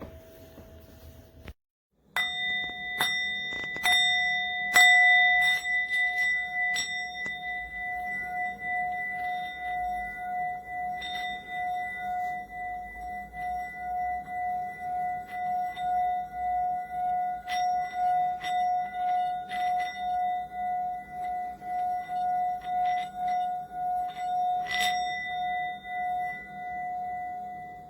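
Small hand-hammered Tibetan singing bowl (7.6 cm) being played with the mallet. After a few taps, a steady sustained ringing tone with higher overtones, pulsing about twice a second as the mallet circles the rim, with occasional mallet scrapes. It fades near the end.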